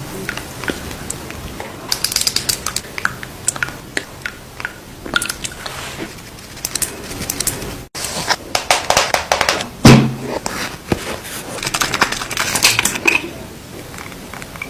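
Close-miked makeup being handled: rapid taps, clicks and crackles from makeup products and their cases. There is a brief dropout about eight seconds in, and one louder thump about ten seconds in.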